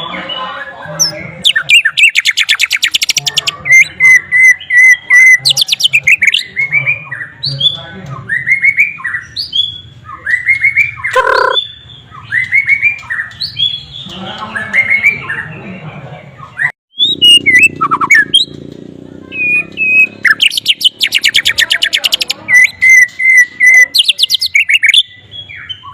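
White-rumped shama singing a varied song of fast buzzy trills, quickly repeated notes and swooping whistles, in a song filled in with phrases copied from the sikatan londo flycatcher. A faint low hum runs underneath.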